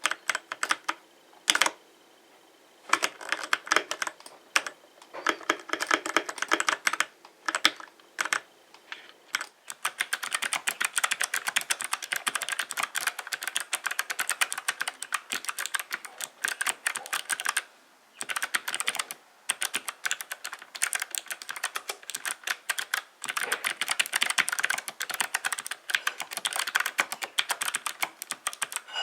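Typing on a mechanical keyboard: scattered single keystrokes and short runs for the first several seconds, then fast continuous typing from about ten seconds in, broken by a couple of brief pauses.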